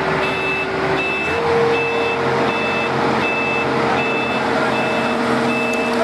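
Combine harvester running with its unloading auger, a steady mechanical drone whose pitch steps up about a second in. Over it a warning beeper sounds a short high beep again and again, roughly every 0.8 s.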